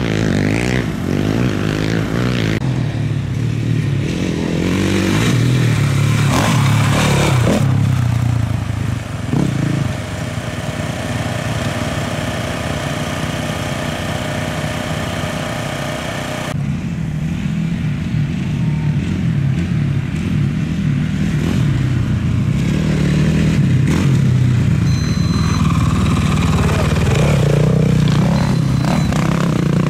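Dirt bike engines passing on a dirt race course, revving up and down as they go by. In the middle a steady engine note holds for several seconds, then cuts off suddenly.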